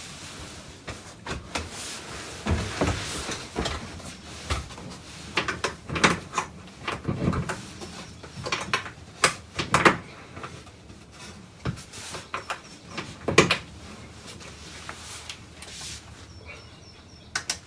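Irregular knocks, bumps and rustling as a mattress and its plywood bed platform are lifted and handled, with the loudest knocks about halfway through and a sharp click near the end.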